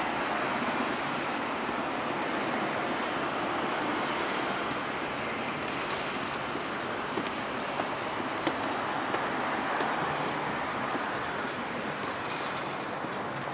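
Busy city street ambience: a steady hum of traffic and crowd with occasional faint clicks. About six seconds in comes a quick run of about five high chirps.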